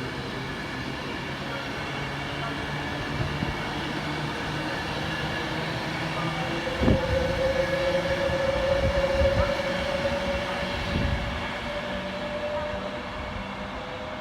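Passenger train moving through a station, with a steady low hum. About seven seconds in there is a knock, then a held whine for several seconds.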